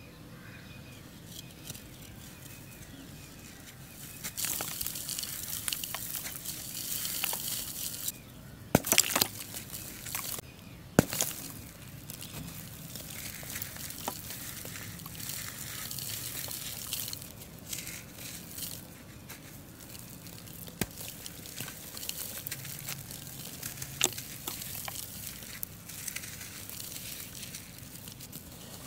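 Bare hands crumbling pressed charcoal balls: a dry, gritty crunching with loose charcoal powder sifting and pattering down. A few sharp cracks come at about nine and eleven seconds in, and again near the end, as harder pieces snap.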